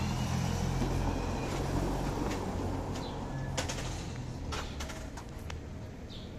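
A road vehicle's low rumble fading away as it passes, followed by a few sharp clicks and short high bird calls.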